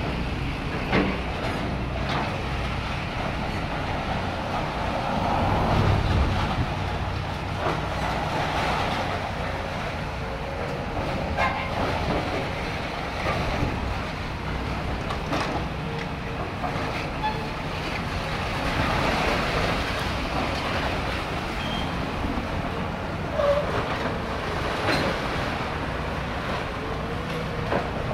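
Hydraulic demolition excavators tearing down a building: steady diesel engine rumble, with scattered sharp crashes and clatters of breaking masonry and falling debris.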